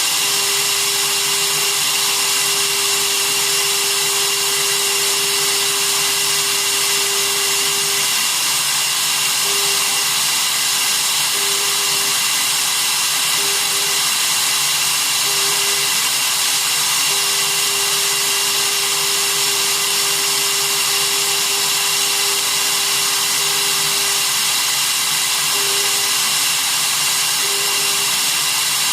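Small CNC router's spindle motor running steadily while milling a copper-clad circuit board, with a lower motor hum that drops out briefly every second or two as the axes move.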